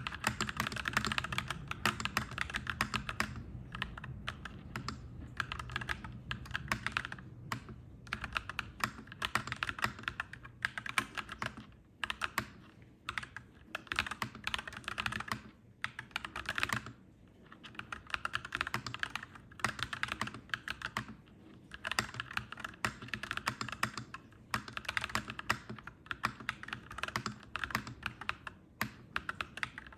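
Clacky mechanical keyboard being typed on steadily, with rapid runs of key clicks broken by short pauses every few seconds.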